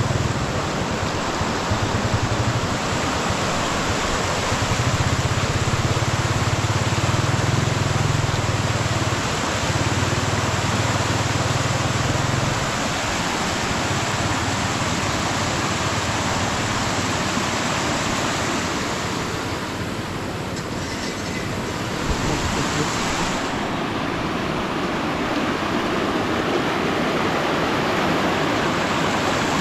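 Floodwater rushing with a steady noise, and a low rumble over the first dozen seconds.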